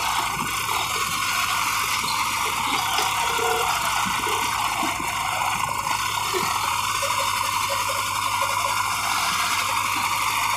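New Holland 3630 tractor's three-cylinder diesel engine running hard under load as the tractor tries to climb out of a trench. A steady, unbroken engine noise with a low hum beneath it.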